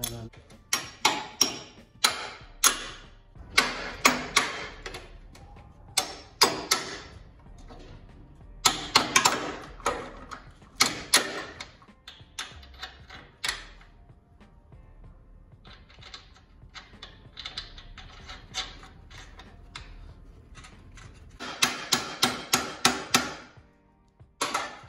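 Steel parts and hand tools clinking and clanking against a truck's upper control arm and frame, in irregular bunches of sharp metallic knocks. A quicker run of about five clicks a second comes near the end.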